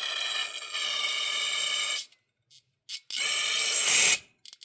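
Aerosol can of carb cleaner spraying through an oil burner's nozzle tube to flush it out: two sprays, one of about two seconds and a shorter one about three seconds in, followed by a few small clicks.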